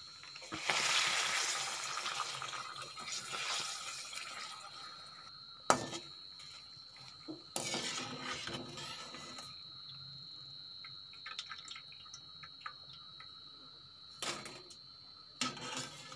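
Pappadam pieces sizzling in hot oil in an aluminium kadai. The sizzle is strongest a second or two after they go in, then fades and swells again halfway through. A perforated steel skimmer clinks sharply against the pan a few times.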